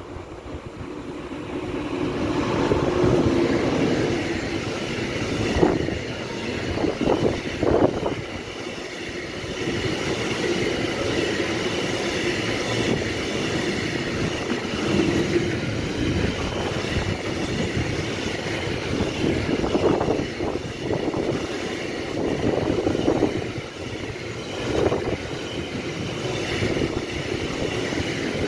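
Container freight train passing: the electric locomotive comes up and goes by in the first few seconds, then a long string of container flat wagons rolls past with a steady wheel-on-rail rumble and a few short clunks.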